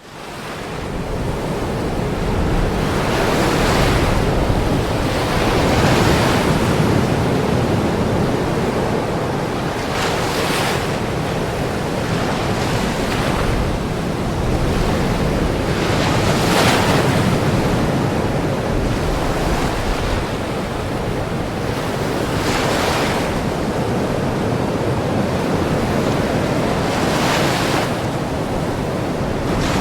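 Ocean surf: a continuous rush of water with waves breaking on the shore every few seconds, about nine times. It fades in over the first second.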